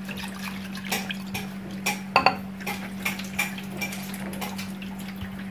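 Dried anchovies being rinsed by hand in a plastic bowl in a stainless-steel sink: water is swished and poured off, with irregular clicks and knocks of the bowl against the sink.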